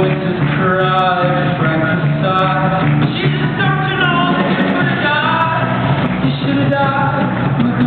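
Live concert music recorded from the audience: a melodic line of sliding notes over sustained low notes, with no words sung.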